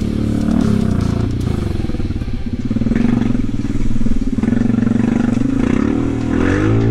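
ATV engine running at low speed, its pitch rising and falling a little with the throttle.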